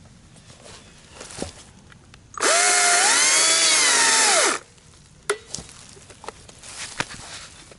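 Stihl MSA 200 battery-powered chainsaw cutting through a small log for about two seconds. It gives a high electric whine that drops away quickly when the trigger is released. A sharp knock follows about a second later.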